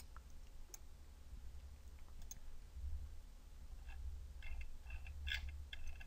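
Faint clicking of a computer mouse and keyboard, with a quick run of clicks in the last two seconds, over a low steady hum.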